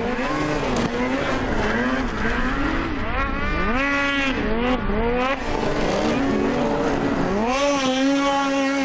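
Racing snowmobile engines revving hard, their pitch climbing and falling again and again as the riders work the throttle through the turns, then holding high near the end.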